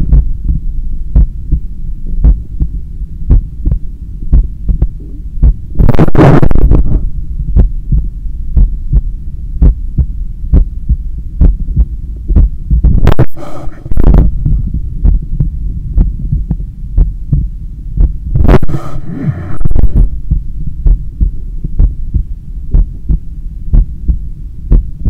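A person's heartbeat picked up through a stethoscope chest piece pressed to the left side of the chest: a steady, regular beat over a low, muffled hum. Three times a louder whoosh of rushing noise lasting about a second rises over the beat.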